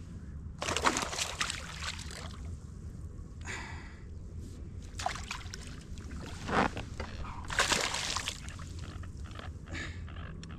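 Water splashing in several short bursts, about a second in and again three times in the second half, over a steady low rumble: a hooked bass thrashing at the surface as it is brought in.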